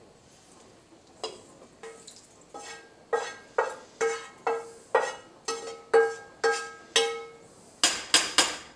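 Metal frying pan knocked and scraped with a wooden spoon while sautéed ground beef is emptied into a saucepan: a run of knocks about twice a second, each leaving the pan ringing briefly, then three quick sharp clacks near the end.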